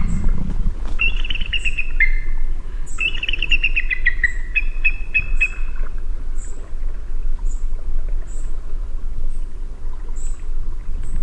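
Eagle calling: runs of rapid, stuttering chattering notes that fall in pitch, coming several times in the first half and then stopping. Faint short high chips repeat about once a second throughout, over a steady low rumble of background noise.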